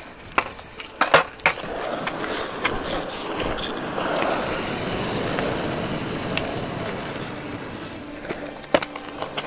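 Skateboard wheels rolling over wet asphalt: a steady rumbling hiss, broken by a few sharp clacks in the first second and a half and one more near the end.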